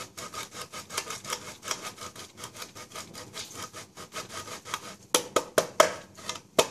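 A block of parmesan rasped hard against a metal box grater, a quick run of scraping strokes about four a second. The strokes grow louder and sharper about five seconds in.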